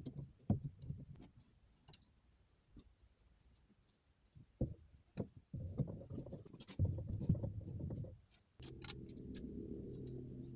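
Light clicks, knocks and rustling of parts being handled, then a steady low hum starts about eight and a half seconds in.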